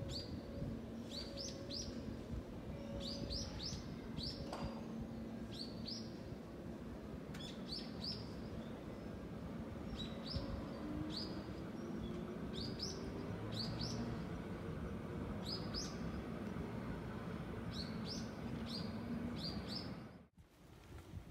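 A small bird chirping in quick pairs and triplets of short high notes, about once a second, over the low rumble of a JR West 221-series electric train pulling away. A faint tone rises slowly in pitch about halfway through, and the sound cuts off abruptly near the end.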